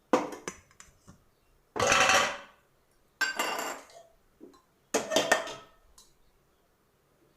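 Steel kitchenware clattering and scraping: four short bursts of metal on metal, with a light ringing, as a spoon works against a steel cake bowl.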